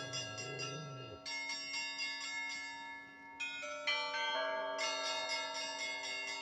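Orthodox church bells ringing (zvon): several bells of different pitches struck in quick succession. Small high bells chime rapidly over longer-sounding lower tones.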